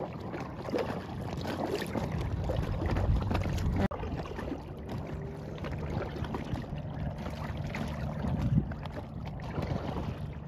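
Wind noise on the microphone over water lapping and splashing around an inflatable kayak on choppy bay water. The sound breaks off abruptly a little under four seconds in and picks up again at once.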